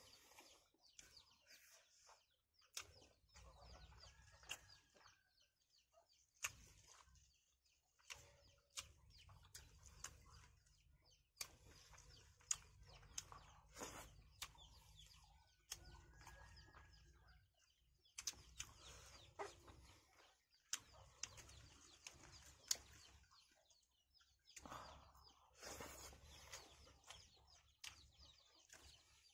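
Faint close-up eating sounds: wet mouth smacks and chewing clicks, scattered irregularly, from two people eating rice and meat curry with their fingers.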